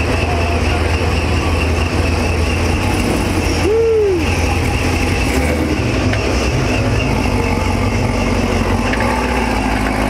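Chevrolet Camaro ZL1's V8 exhaust running with a deep, steady low note as the car rolls slowly past at low revs. About four seconds in, a brief tone rises and falls.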